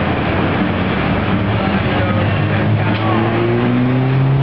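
A motor vehicle's engine running, its pitch rising slightly over the last second and a half.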